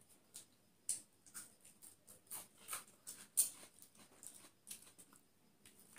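Eating sounds of people eating biriyani with their hands: faint, irregular short smacks and clicks from chewing and from fingers working the rice on the plates.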